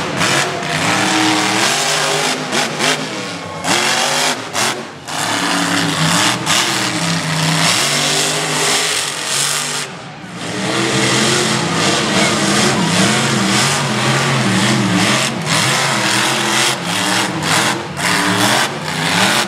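Monster truck engine revving hard again and again, its pitch climbing and falling as the truck drives across sand, easing off briefly about ten seconds in.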